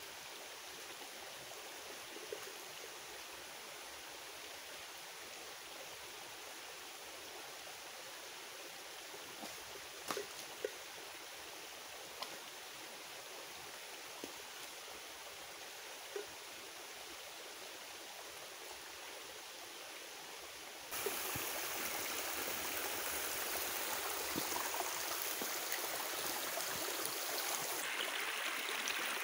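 Small woodland stream running steadily, with a few faint clicks in the first part. About twenty seconds in the sound jumps abruptly louder, now close to the flowing water.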